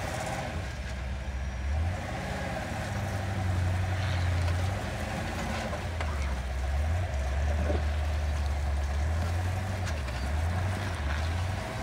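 Off-road truck engine working hard, revving up and down repeatedly as the driver tries to get the rig through a pit.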